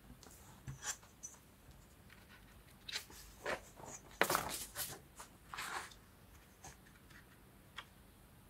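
Paper being handled, with scattered short rustles and light taps; the longest and loudest rustle comes about four seconds in.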